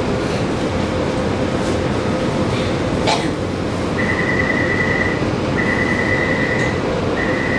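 Steady hum inside a Taipei Metro C341 refurbished train standing at a station, with a faint held tone. A sharp click comes about three seconds in, then three long high electronic beeps, each a little over a second.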